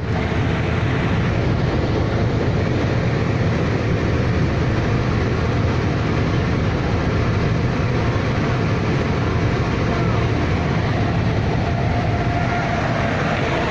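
Steady low rumble of a boat engine running, under an even hiss of wind and water noise.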